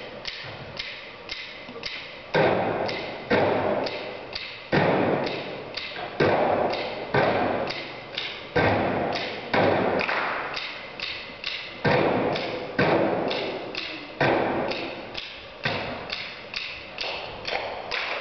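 Body percussion by a small group: hands clapping in a quick even rhythm, about four claps a second, with heavier foot stomps landing roughly once a second.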